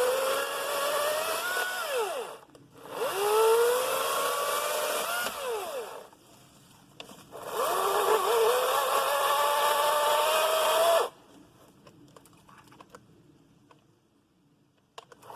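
EGO 14-inch 56-volt battery-powered chainsaw running in three bursts of about three seconds each, its electric motor and chain whining and rising in pitch during each burst, then stopping for the last few seconds.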